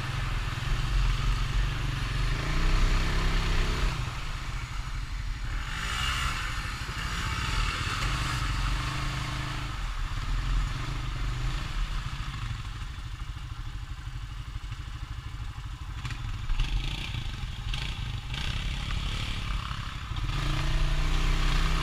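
Honda Rancher ATV's single-cylinder four-stroke engine running while being ridden, the throttle opened and eased. It quietens in the middle and picks up again near the end, with a brief rushing noise about six seconds in.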